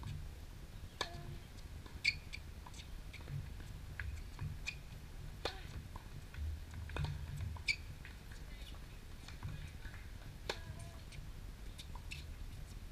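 Tennis rally on an outdoor hard court: sharp pops of the ball off the rackets and short high squeaks, every second or so, over a low steady rumble.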